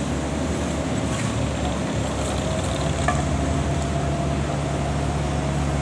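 Mobile crane's engine running steadily under load as it hoists a heavy tower-crane section: a continuous low hum with a broad hiss over it.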